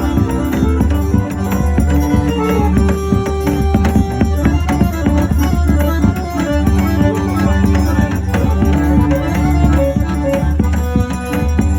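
Instrumental forró music with no singing: a busy melody of short held notes over a steady bass and a running percussion beat.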